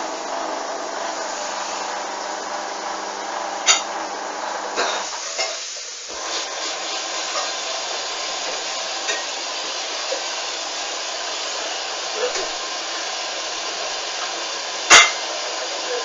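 Hoover A59 washing machine between the main wash and the first rinse: a steady hum with a whine stops about five seconds in, leaving a steady hiss. There are a few light clicks, and one loud click near the end.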